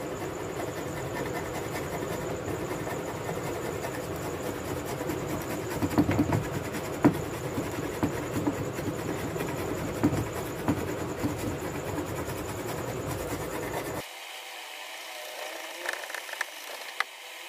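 A hand-held metal blade scraping shavings off the willow face of a cricket bat, heard as irregular scrapes and clicks over a steady low rumble. The rumble drops away abruptly about 14 seconds in, leaving it quieter.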